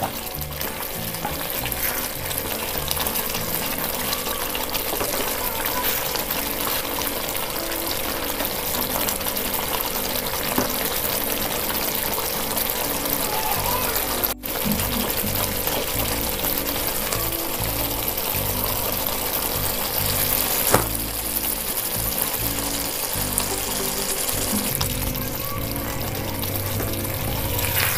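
Thick capsicum masala curry simmering uncovered in a pan on a gas stove, a steady bubbling noise, with background music underneath. The sound cuts out for an instant about halfway through.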